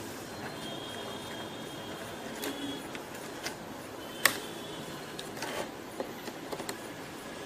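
Light clicks and taps of small metal and plastic laptop parts being handled as the processor cooler is fitted back onto the motherboard. The sharpest click comes about four seconds in, with a few smaller ones later, over a steady hiss.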